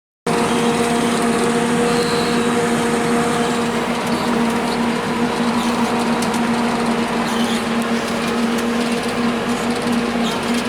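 Heavy farm machinery running steadily at work, a loud even engine and machine noise with a constant humming tone through it. It cuts in suddenly just after the start.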